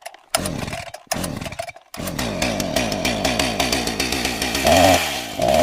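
Chainsaw engine running and revving. It cuts out abruptly twice in the first two seconds, then runs on with two sharp revs near the end.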